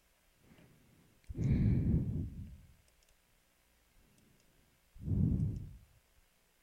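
Two long exhales into the microphone, sighs of frustration: the first about a second in and lasting about a second and a half, the second shorter, near the end. Faint clicking is heard between them.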